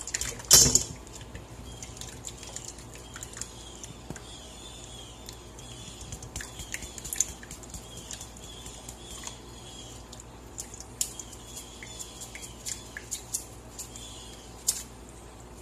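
Blended chile salsa being worked through a wire-mesh strainer into a pot: a single knock about half a second in, then a run of light repeated scraping strokes and scattered clicks, over a faint steady hum.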